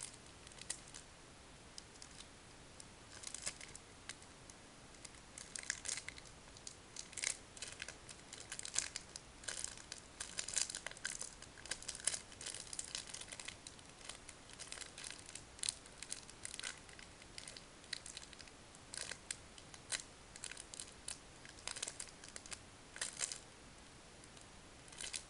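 Plastic packaging crinkling and rustling in short, irregular bursts as it is handled and torn open by hand.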